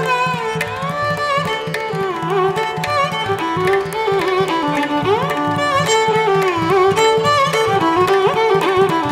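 Background instrumental music in an Indian classical style: a sliding string-like melody over a steady rhythmic beat.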